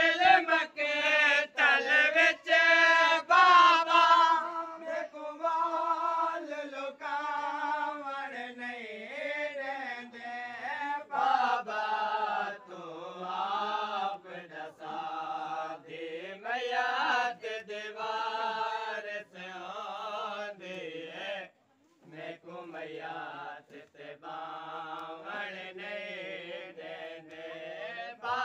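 Unaccompanied male voices chanting a noha, a Shia mourning lament, in long drawn-out melodic lines that break off briefly about three-quarters of the way through.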